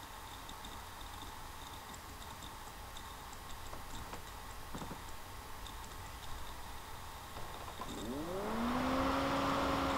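Low hiss with faint ticking, then about eight seconds in a motor starts up: a hum that rises in pitch and settles into a steady drone with a hiss over it.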